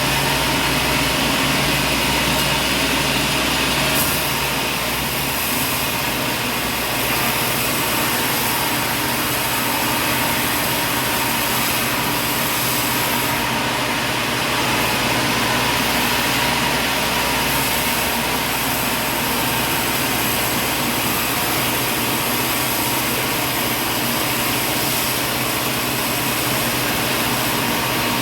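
Sawmill machinery running steadily, a continuous mechanical noise with a faint steady hum and no breaks.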